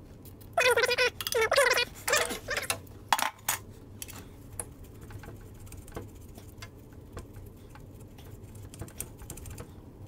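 Socket ratchet working on a crankshaft pulley bolt: two short high-pitched squeaks about a second in, a sharp metal knock a little after three seconds, then light, irregular clicking of the ratchet and socket as the bolt is backed out.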